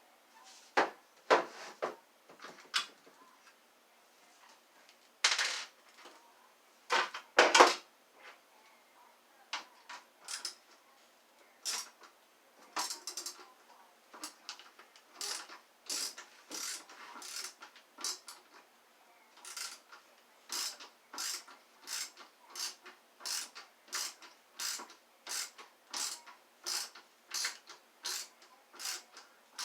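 Hand tools working on a vacuum cleaner wand's metal and plastic parts. A few loud, irregular knocks and scrapes come first, then a steady run of short rasping strokes at about one and a half a second.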